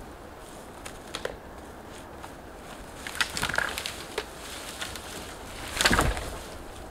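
Irregular crunches and snaps from gathering firewood in snow, with a cluster of small cracks about three to four seconds in and the loudest crunch near six seconds.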